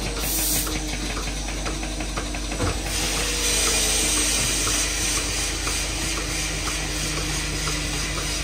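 Robotic milking machine working under a cow: a steady hiss of spraying water and air, with a faint regular ticking of about two a second. The hiss grows louder about three seconds in.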